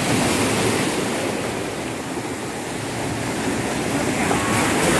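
Steady rush of sea waves.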